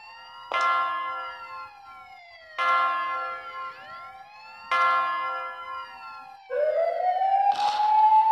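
Film sound design: a ringing, bell-like metallic tone struck about every two seconds, each strike dying away while gliding tones sweep up and down around it. About six and a half seconds in, a siren-like whine rises and then holds, with bursts of hiss.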